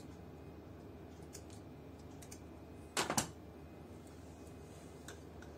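A few faint snips of long shears notching the leather covering of a shoe heel at its curve, so the leather gives. About three seconds in comes a loud double knock as the shears and heel are put down on the workbench.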